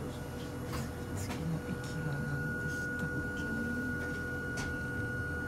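Inside a Hakone Tozan Railway carriage: a steady low rumble with a steady high-pitched hum that starts nearly two seconds in, a few faint voices and scattered light clicks.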